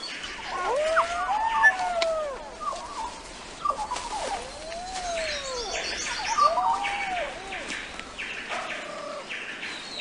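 Forest birds calling. One bird gives a slow whistle that rises and then falls, three times, while higher chirps and trills sound around it.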